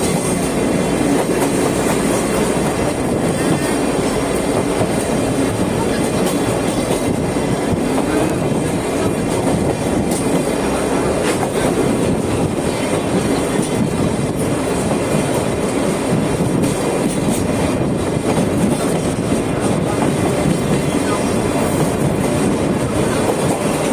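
Sagano Romantic Train rolling along its track, heard from aboard the carriage: a steady rumble and rattle of wheels on rails with scattered faint clicks.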